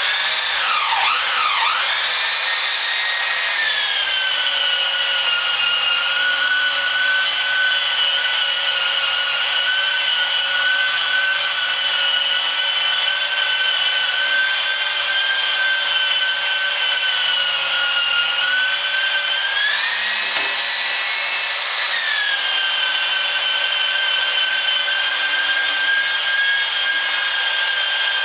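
An electric sander starts up and runs with a steady high whine on wood. Its pitch settles lower a few seconds in and rises briefly about twenty seconds in before settling again.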